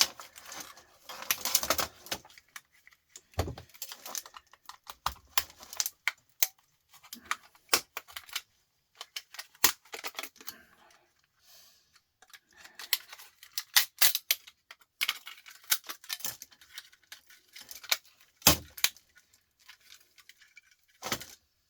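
Irregular sharp clicks, snaps and clatters of plastic housing and small parts being prised and pulled off an appliance control circuit board by hand and tool, with a few louder snaps scattered through.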